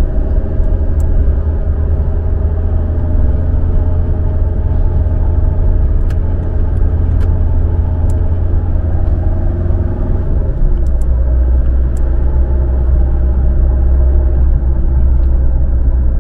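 Car driving on a city road, heard from inside the cabin: a steady low rumble of engine and tyres that shifts a little lower about ten seconds in, with a few faint ticks.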